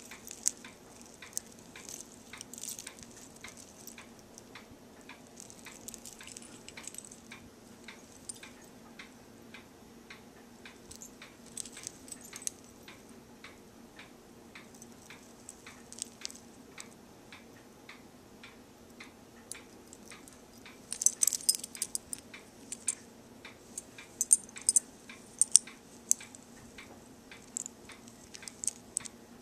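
Small metal charms, coins and beads on a costume wig clinking and jingling as fingers handle them, with light scattered clicks throughout and a busier flurry of jingling about two-thirds of the way through.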